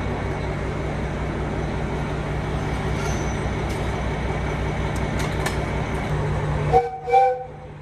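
Steady low drone of a KiHa 201 diesel railcar's engine idling at the platform, with a few faint clicks. Near the end the drone cuts off and two short train horn toots sound.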